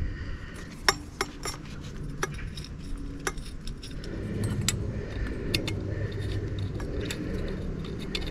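Small metal nuts clinking and jingling as they are handled and threaded loosely by hand onto the exhaust header studs of a motorcycle engine: a scatter of sharp, irregular clicks.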